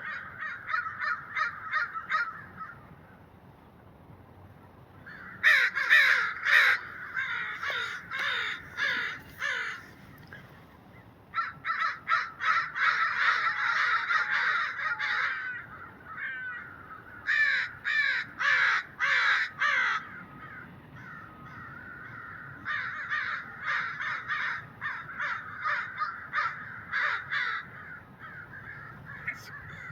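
American crows cawing in runs of quick, repeated calls: about five bouts, with short pauses between them.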